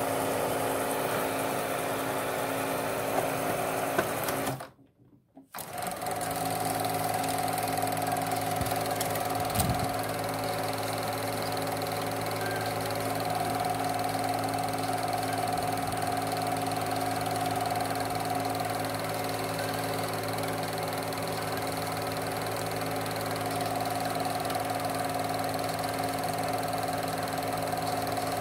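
Elmo SC-18 M Super 8 sound projector running, its motor, fan and film-transport mechanism making a steady mechanical whirring hum with its drive belts freshly replaced. The sound drops out for about a second, about five seconds in.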